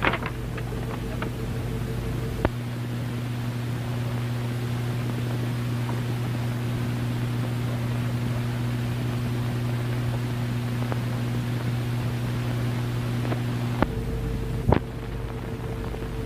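Hiss and steady low hum from an early-1930s film's optical soundtrack, with no dialogue or music. A sharp click comes about two and a half seconds in, and two more come near the end, where the background noise changes at the edits.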